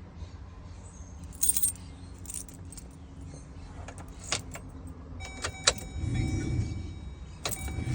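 Keys jangling and clicking as the ignition key of a Chevy van is handled and turned. A little past halfway a steady high warning tone comes on. About six seconds in the engine turns over, and by the end it is running with a steady low rumble.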